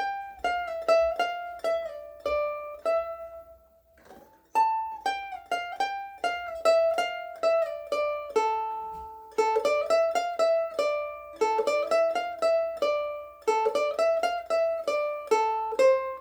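Pops (UkeSA) Pineapple Sundae ukulele with pine sides and UkeSA strings, plucked as a single-note melody high up the fretboard. Quick runs of notes ring out, with a short pause about four seconds in.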